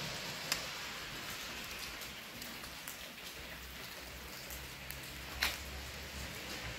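Steady hiss of rain falling, with scattered small taps and two sharper clicks, one about half a second in and a louder one about five and a half seconds in.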